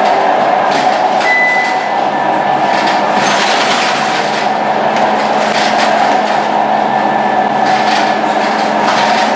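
Scania K230UB bus with a ZF 6HP502C automatic gearbox, heard from inside the cabin, driving along with steady engine, gearbox and road noise.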